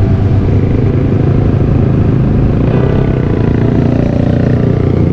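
Kawasaki Z800 inline-four engine running steadily under way, heard from the bike itself as a loud, continuous low rumble mixed with road and wind noise.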